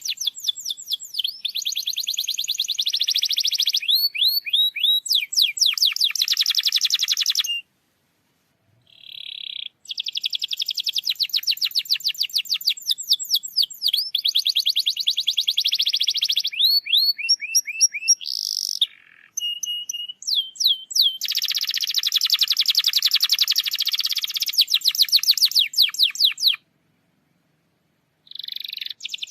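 Domestic canary singing long, rapid trills and rolls of fast repeated high notes and sweeps. The song breaks off twice into brief total silence.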